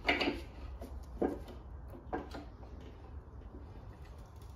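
Three metal clunks about a second apart as a Holden Grey six-cylinder block is turned over on a rotating engine stand.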